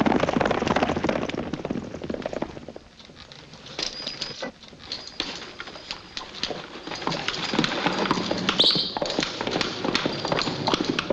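Horse hooves clip-clopping on a dirt street. The hoofbeats are loud at first and fall away about two and a half seconds in, then pick up again as a quick run of clip-clops about four seconds in and grow louder toward the end as the horse is ridden off.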